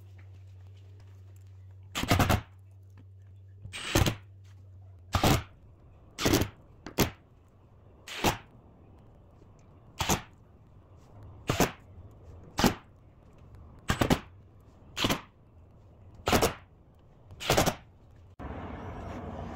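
A series of about thirteen loud, sharp knocks, irregularly spaced about a second apart, over a low hum that stops about five seconds in.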